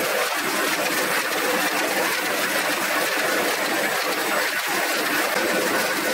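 Old sheet-fed printing press running, a steady mechanical clatter and hum with no clear beat.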